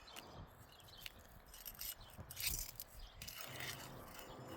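Scattered scrapes and short sharp clicks of a metal pry tool working under asphalt shingles, hunting for a hidden nail.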